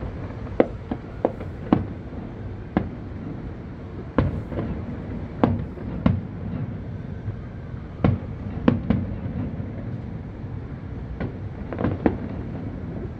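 Aerial fireworks display: about a dozen sharp bangs at irregular intervals, each followed by a low rumbling echo off the surrounding high-rise buildings.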